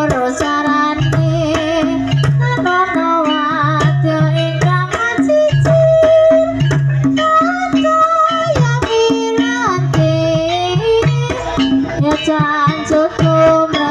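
Javanese gamelan music accompanying an ebeg horse dance: hand-drum (kendang) beats and tuned percussion under a wavering sung melody, with short sharp strikes throughout.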